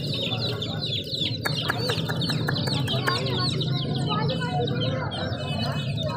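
A crowd of baby chicks peeping continuously: many short, high, downward-sliding peeps overlapping one another. A quick run of sharp clicks or taps comes in from about a second and a half in, with a steady low hum underneath.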